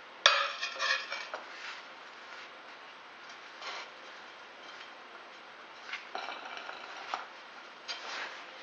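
Pizza stone on a ball-bearing turntable being handled and spun by hand: a sharp clatter just after the start with a second of rapid rattling, then faint rubbing of the bearing as it turns, with more clusters of clicks and rattles around six and eight seconds.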